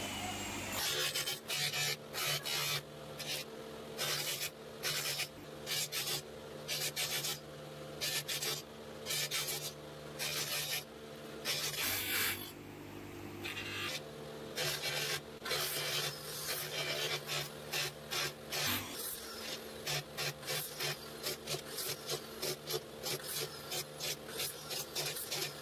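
Stainless steel pipe grill work pressed again and again against an electric motor's spinning cloth buffing wheel, loaded with polishing compound, giving a repeated rasping, rubbing hiss over a steady motor hum. This is the buffing stage that brings the dull pipe to a shine.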